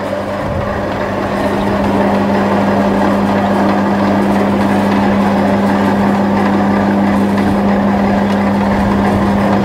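Maksindo MKS-350 electric noodle-cutting machine running, its motor and gear drive giving a strong steady hum, while a sheet of dough passes through the cutting rollers into 2 mm noodles. The sound grows a little louder over the first two seconds, then holds steady.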